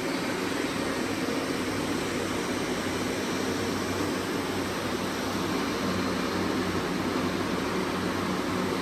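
Robot vacuum cleaner running, a steady motor-and-suction hum with a low drone underneath.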